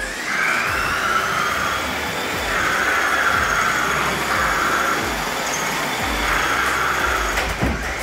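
Remote-control toy car's small electric motor whining as the car drives in about four surges with brief let-ups, its pitch rising at the start and dropping near the end.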